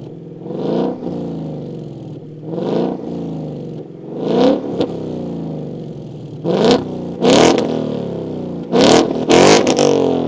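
A Ford Mustang GT's 5.0 Coyote V8 blipped at a standstill through an MBRP Street cat-back exhaust with H-pipe, each short rev dropping back to a steady idle. There are three single revs in the first half, then quicker double blips in the second half.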